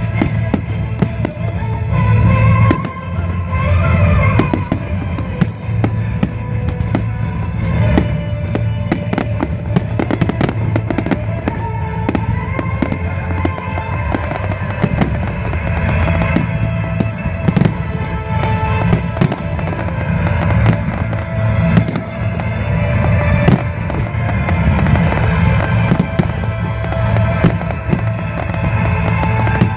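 Fireworks display: aerial shells bursting in a rapid, irregular string of bangs, several a second, with music playing underneath.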